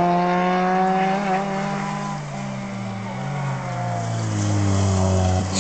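Rally car engine running at high revs, a steady note that sags and fades a little in the middle, then climbs and gets louder again toward the end.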